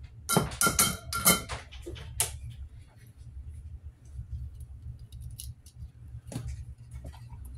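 Small metal objects clinking as they are handled on a workbench: a quick run of sharp, ringing clinks in the first couple of seconds, then a few light taps and a knock near the end, over a steady low hum.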